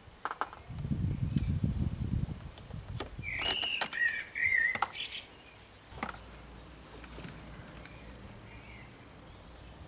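Clicks and rustling as thin pins and multimeter test probes are worked into the back of a mass airflow sensor's wiring connector, with a low handling rumble in the first couple of seconds. Around the middle a high, wavering chirp sounds for about a second and a half among the clicks.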